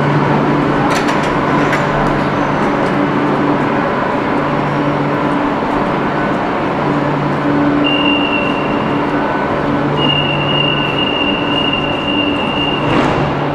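Madrid Metro train standing at a station platform, humming steadily in the station hall. A high steady electronic tone sounds briefly about eight seconds in, then again from about ten seconds for some three seconds, and a short loud whoosh comes near the end.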